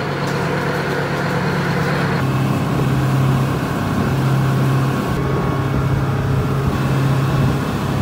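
Motor vehicle engine running steadily with a low, even hum; the sound changes abruptly about two seconds in.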